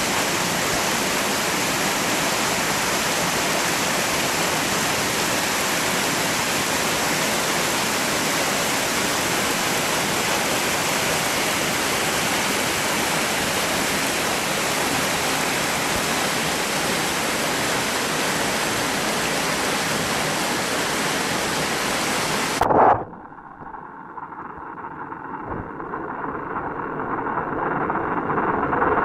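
Steady rushing of a mountain stream's cascade. About 23 s in it cuts off suddenly to a muffled, dull water sound heard underwater, which grows louder toward the end.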